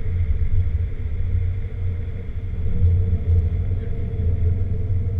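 Porsche 996 Turbo's twin-turbo flat-six and tyres heard from inside the cabin while driving on a circuit: a steady low drone with no clear change in revs.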